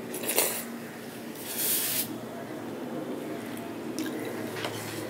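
Wet mouth sounds of eating a spoonful of bakorkhani flatbread soaked in milk, loudest in a short slurp about a second and a half in. Near the end, a metal spoon taps twice in a steel bowl of milk.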